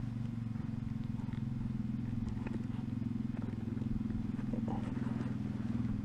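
A steady low engine drone runs throughout, with a few faint ticks and scrapes from a Swiss Army knife's awl being worked through the welt of a leather hiking boot.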